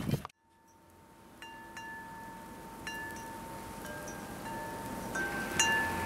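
Metal-tube wind chime stirred by gusting wind. It is struck irregularly, about seven times, and each strike leaves a long, sustained ringing tone over a faint hiss. The chiming begins about a second and a half in, after a noisy sound cuts off abruptly at the very start and a moment of silence follows.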